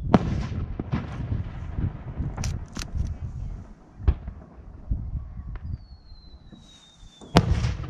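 Aerial firework shells being launched and bursting: a sharp bang right at the start, then scattered cracks and dull thumps. Near the end a rising shell's whistle falls in pitch for about a second and a half and is cut off by a loud burst.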